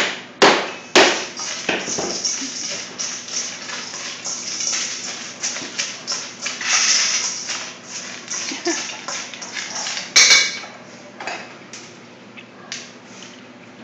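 Stainless steel dog bowls clattering on a steel prep table: a few sharp knocks in the first second, then a run of lighter clinks and scrapes, with a louder clatter about ten seconds in.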